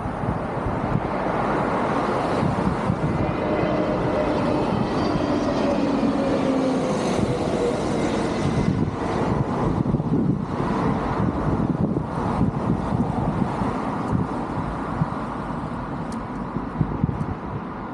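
Busy road traffic passing close by, a continuous rush of engines and tyres. Early on, one passing engine's hum falls slowly in pitch as it goes by.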